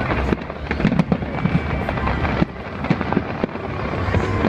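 Fireworks display: a steady run of bangs and crackling bursts over a constant rumble, with the loudness dipping briefly about halfway through.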